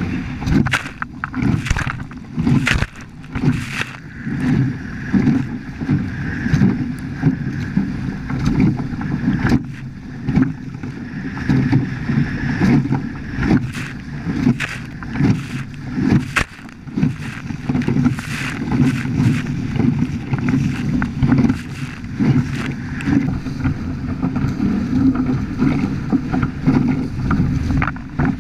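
Wind rumbling on the microphone and water rushing and slapping against the hulls of a Hobie Cat 14 catamaran under sail, with frequent brief splashes or knocks.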